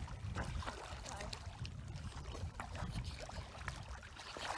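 Light splashing and lapping water from springer spaniels and a person swimming in shallow water, as scattered small splashes over a steady low rumble.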